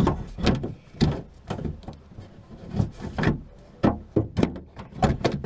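Irregular clicks, knocks and scrapes of hard parts as a Hyundai i40 door lock assembly is worked and twisted back into place inside the door.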